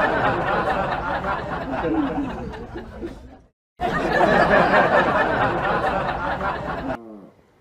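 Audience laughter from a canned laugh track, many voices at once. It breaks off about three and a half seconds in, then the same laughter starts again and fades near the end.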